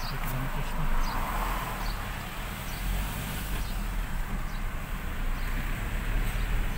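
A car driving along a road, heard from inside the cabin: a steady low rumble of engine and tyre noise. There are a few faint, short, high chirps in the first couple of seconds.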